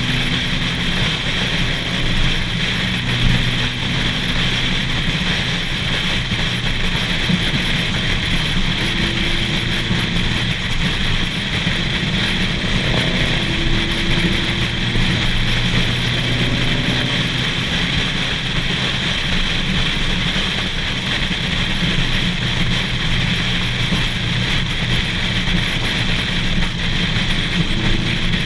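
Steady wind buffeting on the microphone and road noise from cars cruising at speed, with faint engine hum coming and going underneath.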